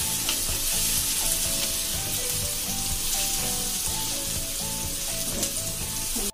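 Diced onions and tomatoes sizzling steadily in ghee and butter in a kadai while being stirred with a wooden spatula. Quiet background music with a simple stepping melody plays underneath.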